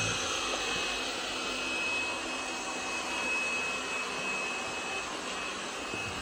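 Suction motor of a BPMIO B10 Plus robot vacuum running steadily: an even rush of air with a high whine held at one pitch.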